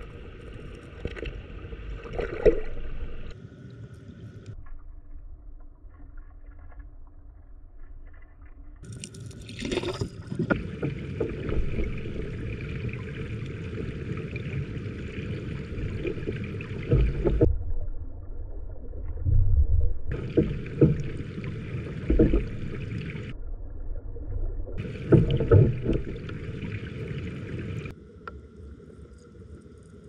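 Mountain stream water heard underwater through a submerged action camera: a muffled rushing and bubbling of the current with occasional sharper splashy gurgles, its tone changing abruptly several times as different clips are cut together.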